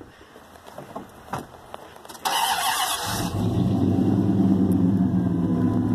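Dodge Ram pickup's engine being started: a few light clicks, then about a second of starter cranking a little over two seconds in, after which the engine catches and settles into a steady idle.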